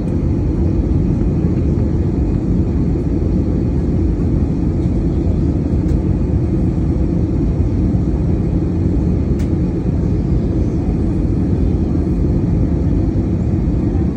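Steady cabin noise of an airliner in flight, heard from inside the cabin: a deep, even rumble of engines and rushing air.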